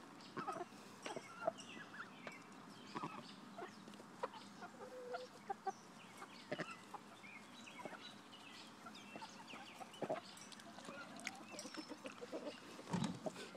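A backyard flock of chickens clucking softly, in many short scattered calls, with a low bump near the end.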